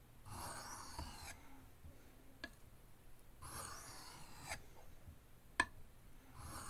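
Knife blade drawn across an oiled soft Arkansas sharpening stone with very light pressure: a faint scraping hiss three times, about once every three seconds, with a few small clicks between the strokes.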